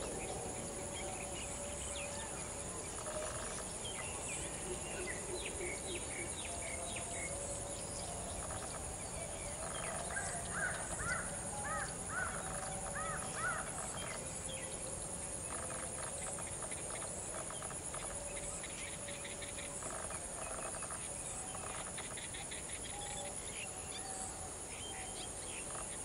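Wetland field ambience: a steady, high-pitched insect drone with assorted bird calls over it. A quick run of looping chirps stands out a little before halfway, and fainter lower calls come and go.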